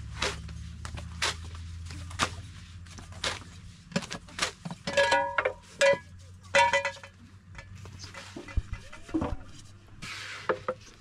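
Thin flatbread dough being stretched by hand: a sheet of dough slaps as it is tossed over a wooden rolling pin, about once a second. This gives way to a busier run of knocks and bright metallic clinks.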